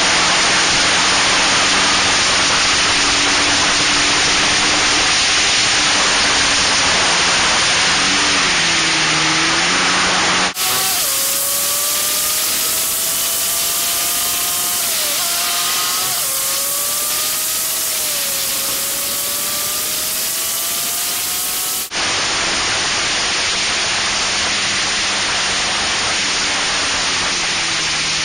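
Locost racing car's engine at speed, heard from an onboard camera under heavy wind buffeting. For a stretch in the middle the wind drops away and the engine note comes through clearly, its pitch climbing slowly under acceleration with a brief dip and recovery partway through.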